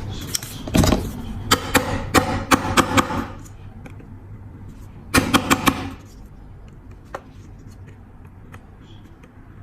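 Sharp metal clicks and taps from working on a dropped metal lighter with bent hinges: one heavy knock about a second in, a run of quick clicks over the next two seconds, and four fast strikes a little after five seconds, over a steady low hum.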